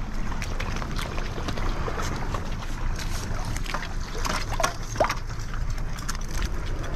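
Water sloshing against shoreline rocks and wind rumbling on the microphone, with scattered clicks and splashes as a striped bass thrashes in the shallows.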